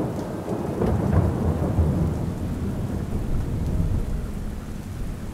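Rolling thunder over steady rain: a low rumble that swells about a second in and then slowly fades, with the hiss of rainfall underneath.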